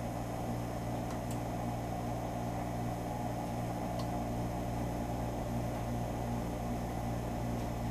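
A low, steady electrical hum with a faint fan-like hiss. Two faint clicks come about a second in and again about four seconds in.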